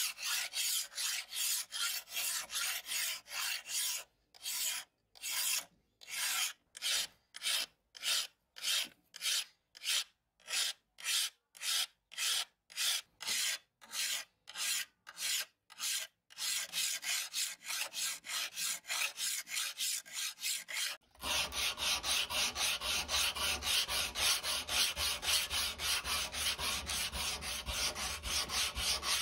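A hand file rasping along a steel sword blade in steady back-and-forth strokes, about two a second. About two-thirds of the way through, the sound changes to faster rubbing strokes of hand sanding on the blade, with a low hum beneath.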